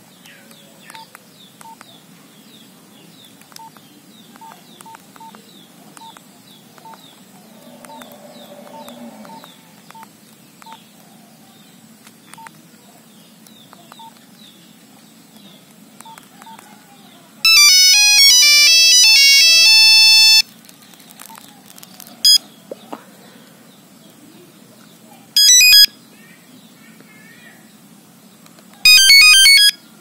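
Nokia 3350 playing monophonic ringtone previews: a loud beeping melody for about three seconds past the middle, then a short blip and two brief snippets near the end as the next tones in the list are reached. Before that come soft, regular key beeps while the list is scrolled, over faint repeated high chirping in the background.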